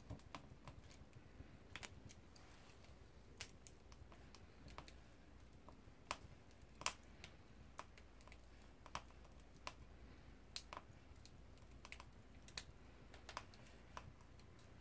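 Wood burning in a small stainless-steel camping wood stove, crackling with irregular sharp pops; the loudest pop comes about seven seconds in.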